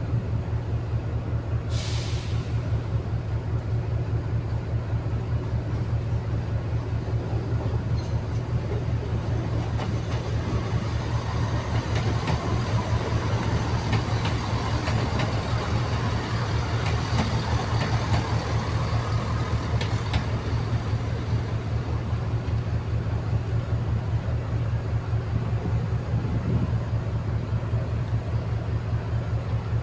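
Diesel train engines running with a steady low throb throughout. A Northern Class 170 diesel multiple unit adds wheel and engine rumble as it passes in the middle.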